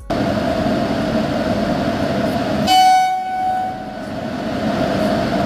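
Indian Railways train running with a steady rumble; about two and a half seconds in, a locomotive horn sounds one single-pitched blast of about a second, the loudest moment, before the running noise returns.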